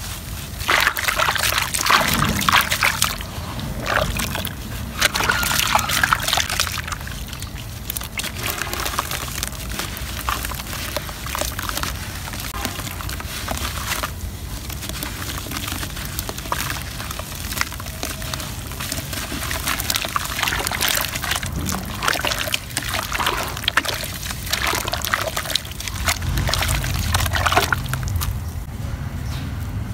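Hands crumbling red dirt into water and working it into a thin mud in a basin: wet sloshing and trickling in irregular bursts.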